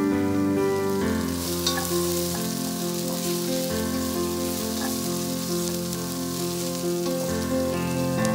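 Sliced red onions sizzling as they fry in a stainless steel pot, stirred with a spoon; the sizzle comes in about a second in. Soft background music with held notes plays over it.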